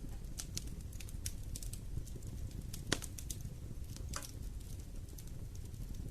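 Wood fire in a fireplace crackling: scattered sharp pops and snaps over a steady low rumble of burning, the loudest pop about three seconds in.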